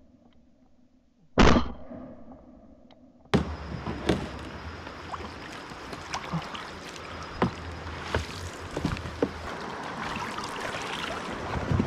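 A shotgun shot about a second and a half in, dying away over about a second. Then river water lapping and splashing, with scattered knocks of a kayak paddle, as a downed Canada goose is retrieved from the water.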